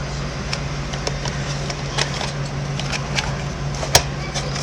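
Light plastic clicks and taps from a miniature toy vending machine being worked by hand, with one sharper click about four seconds in, over a steady low hum.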